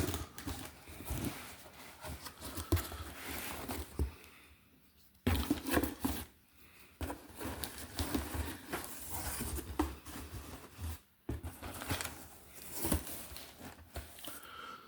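Packing tape being torn and peeled off a cardboard box, with crackling rips, rustling and scraping in irregular bursts and short pauses.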